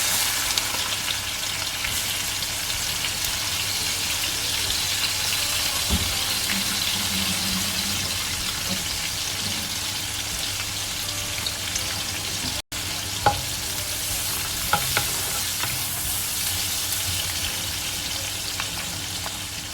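Dried anchovies (ikan bilis) sizzling steadily in hot oil in a frying pan, with a few sharp clicks in the second half.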